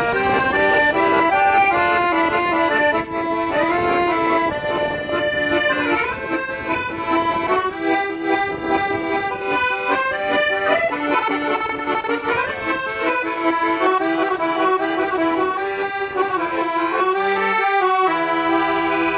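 Paolo Soprani piano accordion playing a lively melody over held chords and bass notes, ending on a long sustained chord near the end.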